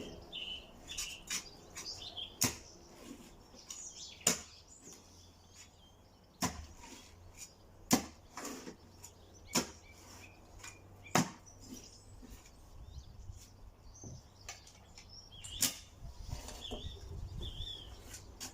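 Sharp single knocks on timber, about seven of them, spaced one to two seconds apart, from work on decking boards. Birds chirp near the start and again near the end.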